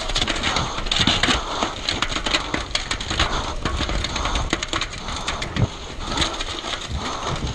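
Mountain bike descending a rough dirt singletrack at speed: tyres crunching over dirt and stones, with the bike rattling in a dense, continuous run of clicks and knocks.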